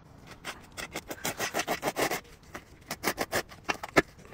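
Metal blades of a hand-held turf repair frame scraping through artificial grass fibres in quick repeated strokes, in two runs. There is a sharp knock near the end.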